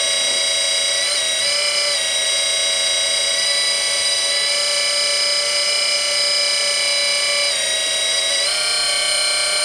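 Hydraulic pump motor of a Kabolite K350-200 RC excavator whining steadily, its pitch shifting slightly a few times.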